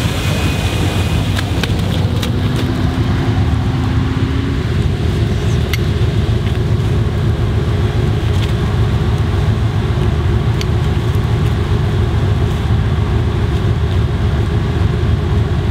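A 4x4 competition truck's engine running steadily: a deep, even rumble with a faint hum over it and a few sharp clicks.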